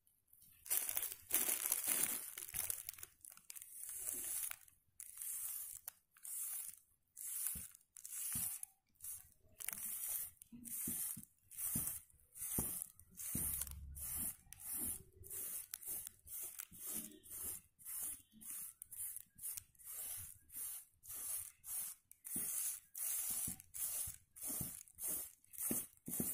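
A cotton pad soaked in blue neel and oil rubbed back and forth over a stencil sheet on cloth, making a long run of scratchy, crinkling strokes about one and a half a second, as the traced design is transferred onto the fabric.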